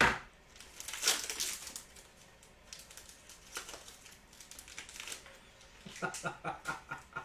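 Trading-card pack wrappers crinkling and rustling as packs are handled and torn open, with sharp crackles at the start and about a second in. A run of short pitched squeaks comes about six seconds in.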